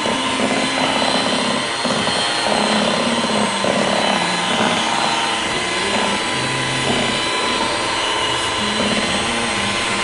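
Electric hand mixer running steadily, its beaters whipping a thick cream mixture in a bowl.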